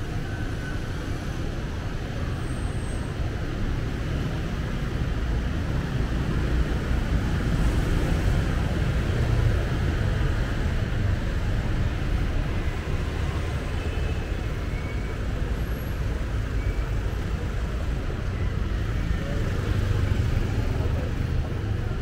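Steady street traffic noise: a continuous din of passing motor vehicles.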